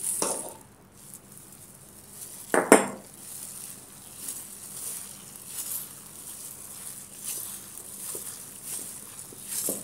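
A plastic-gloved hand mixing flour into mashed sweet potato in a stainless steel pot: repeated soft rustling and scraping strokes of the glove and dough against the pot, with one brief louder sound about three seconds in.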